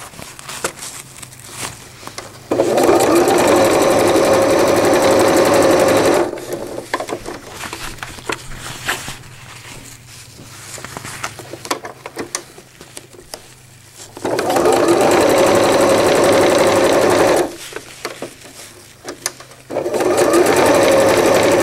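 Electric sewing machine stitching PUL fabric along a zipper in three steady runs: about three and a half seconds, then about three seconds, then another run starting near the end. Quieter rustling and handling of the fabric comes between the runs.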